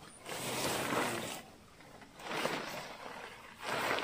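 Nylon tent rainfly rustling and swishing as it is pulled and spread over the tent, in three swells.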